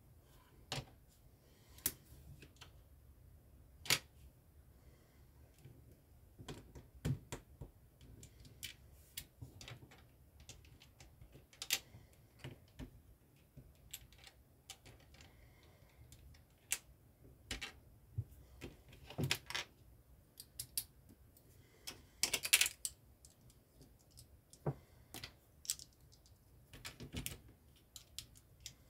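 LEGO bricks and plates clicking as they are handled and pressed together by hand: irregular sharp plastic clicks, some in quick clusters, with the loudest run about three quarters of the way through.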